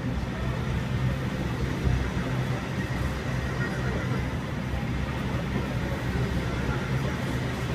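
Sydney Trains Waratah double-deck electric train pulling out of the platform, its carriages running past with a steady noise and a low hum.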